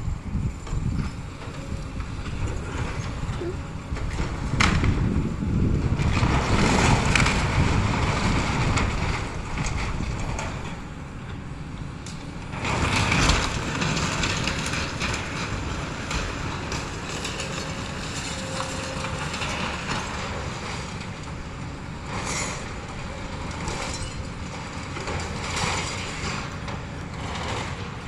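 Excavator running as it breaks up and pushes the debris of a demolished house, with stretches of crunching and scraping rubble and a few sharp knocks.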